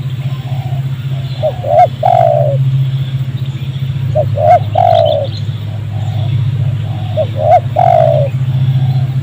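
Spotted dove cooing: three phrases about three seconds apart, each a few short notes ending in a longer falling coo, over a steady low hum.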